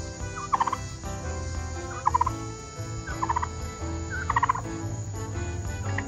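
Turkey gobbling in short rattling bursts, four times about a second apart.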